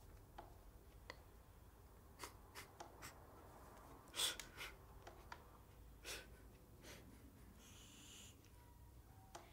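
Near silence: room tone with scattered faint clicks and one short, breathy noise about four seconds in.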